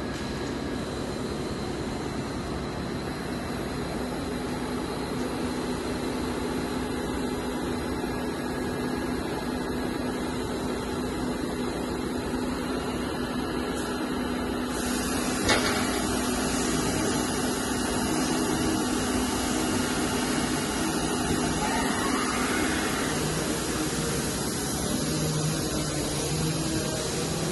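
Steady hum and hiss of a powered-up Nexturn LX-20B Swiss-style CNC lathe, with a held low tone underneath. The hiss grows louder about halfway through, and a single click follows just after.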